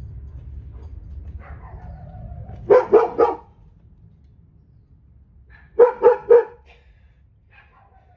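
A dog barking in two quick bursts of three or four barks each, about three seconds apart.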